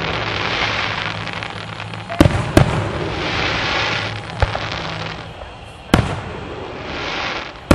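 Aerial firework shells bursting with sharp bangs: two close together about two seconds in, and another about six seconds in.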